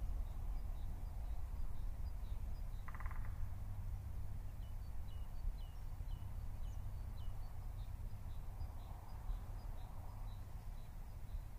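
Outdoor savanna ambience: a steady low rumble with small high bird chirps repeating throughout, and one short buzzy call about three seconds in.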